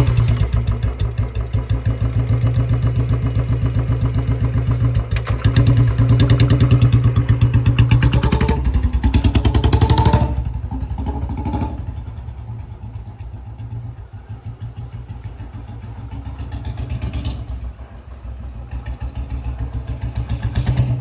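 Royal Enfield Bullet 350's single-cylinder engine running under way with its steady low beat, revving up harder about eight to ten seconds in, then easing off to a quieter, lower beat before picking up again near the end.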